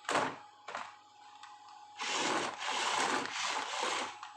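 Handling noise: a sharp knock at the start, a lighter knock just after, then about two seconds of rubbing and scraping.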